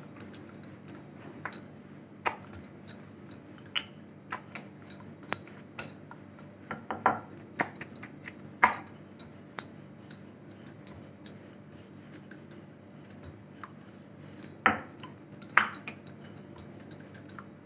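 Wooden rolling pin rolling out rounds of bread dough on a board: scattered light knocks and clicks from the pin, a few of them sharper, over a faint steady hum.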